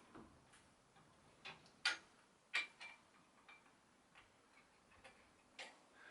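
Faint, irregular metallic clicks and taps of a 6 mm Allen key working at a bicycle's quill stem bolt, the two loudest about two seconds in.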